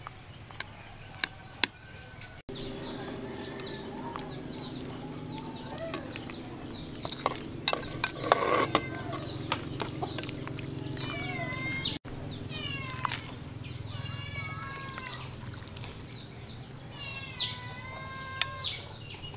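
A metal ladle clinks against an aluminium soup pot in sharp, scattered clicks. High chirping bird calls, each falling in pitch, come in bunches in the second half, over a steady low hum.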